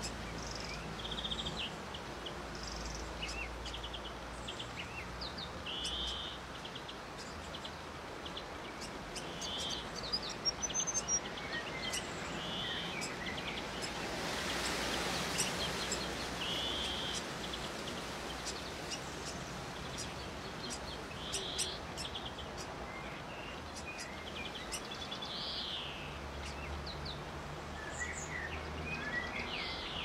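Small birds chirping in short notes every second or two over a steady outdoor hiss; the hiss swells briefly about halfway through.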